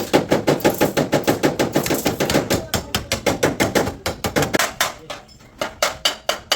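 Hammer beating on car-body sheet steel: a fast run of ringing blows, about six a second, then a pause and a few slower blows near the end.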